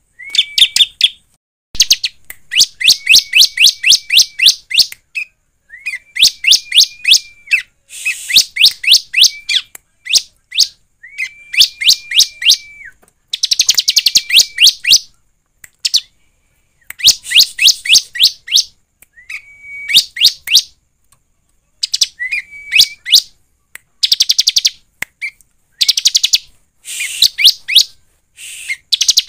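Bar-winged prinia (ciblek) singing in repeated bursts of rapid chip notes, many with a steady high whistle held beneath, each burst lasting one to three seconds with short pauses between.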